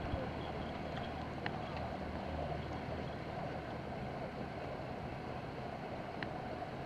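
Steady outdoor background noise: a low, even hum under a hiss, with a couple of faint clicks about one and a half seconds in and near the end.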